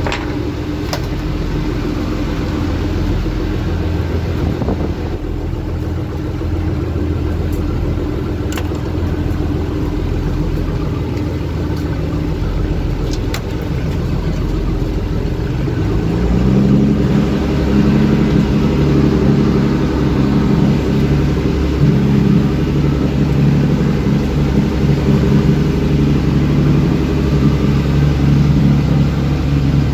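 A small fishing boat's motor running under way, over the rush of water and wind. About halfway through, the engine's note changes and it grows louder.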